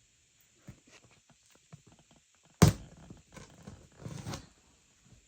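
Handling noise: one loud thud about halfway through, with light knocks and rustling around it.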